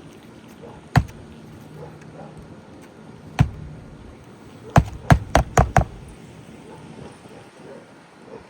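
Hammer blows nailing a roofing shingle into place: two single strikes, then a quick run of five strikes lasting about a second.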